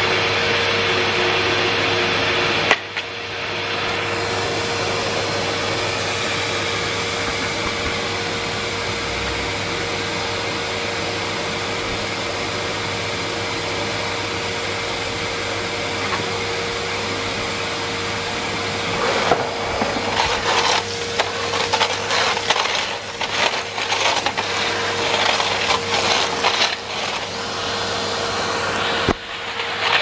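Numatic Henry International vacuum cleaner running steadily with a constant hum, with a single click about three seconds in. From about two-thirds of the way through, crackling and rattling set in as the floor tool is worked over concrete paving slabs and grit is sucked up the hose.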